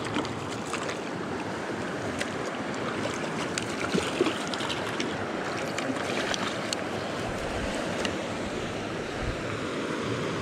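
Small stream's water rushing steadily, with a few brief sharp clicks and knocks in the middle, the loudest about four seconds in.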